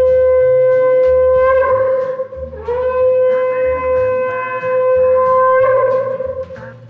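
Conch shell (shankha) blown in two long, steady, single-pitched blasts, the first breaking off about two seconds in and the second ending shortly before the close, each wavering as the breath runs out. It is blown to welcome a Ganesh idol into the home.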